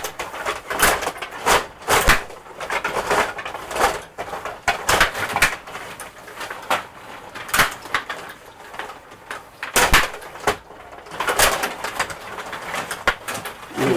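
Rod hockey game in play: irregular sharp clacks and knocks of the metal rods, plastic players and puck, bunched several to a second at times.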